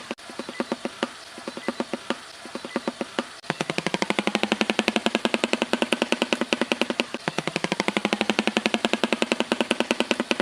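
An animal's trilling call: a fast, even pulsing of about ten pulses a second on a steady pitch, broken by short pauses.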